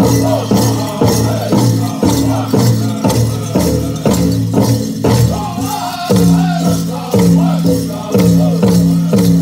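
Powwow drum group singing a grass dance song over a big drum beaten in a steady pulse, about two beats a second.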